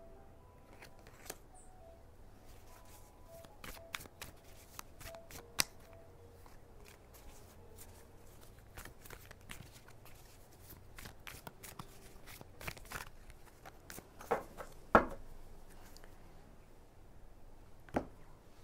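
Tarot cards being shuffled by hand: a run of soft, irregular flicks and clicks, with a few louder sharp snaps of cards in the last few seconds.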